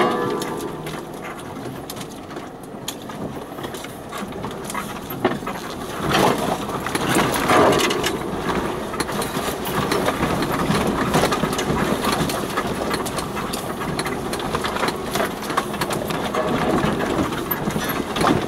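Off-road 4x4's engine running at low speed as it descends a rutted, overgrown green lane, with frequent knocks, rattles and scrapes from the body and vegetation as it bumps over the track.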